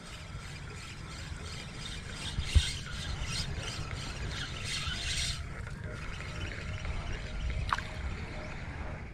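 Ultralight spinning reel being cranked, its handle and gears whirring in an even rhythm of about three turns a second that stops about five seconds in. There is a single sharp knock a little over two seconds in, under a low rumble.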